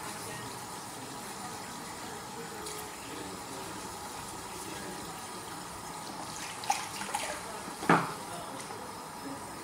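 Hot water running steadily from a tap into a sink. Near the end come a light click and then a sharper knock.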